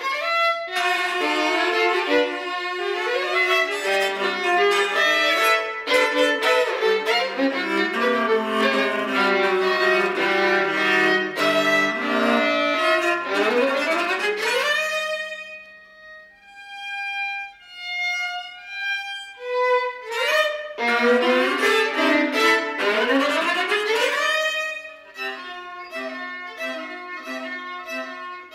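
Violin and viola duo playing a contemporary piece: busy, dense bowed passages that twice rise in sweeping upward slides, a sparser middle stretch of short high notes, then a repeated pulsing figure near the end.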